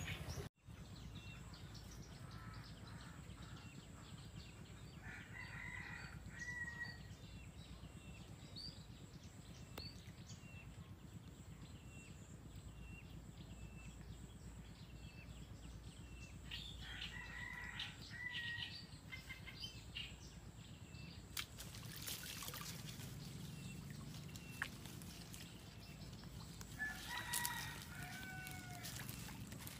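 A rooster crowing faintly three times, about ten seconds apart, over small bird chirps. From about two-thirds of the way in come scattered light clicks and rustles.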